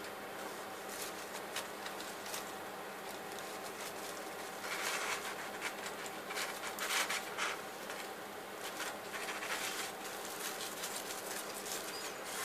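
Rustling and scratching of a honeycomb paper ball and its string being handled, busiest in the middle, over a steady faint hum.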